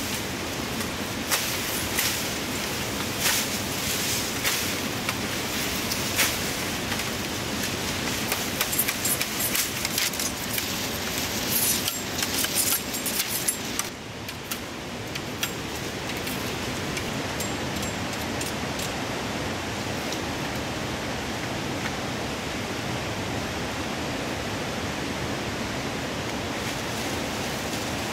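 Steady rushing of river water, with sharp snaps, knocks and leaf rustle from bamboo stems being cut and pulled through the thicket during roughly the first half. After that only the water continues.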